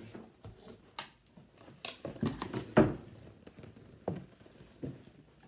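Packaging rustling and crinkling as a bag is handled and unwrapped, with several sharp knocks and clicks; the loudest comes a little under three seconds in.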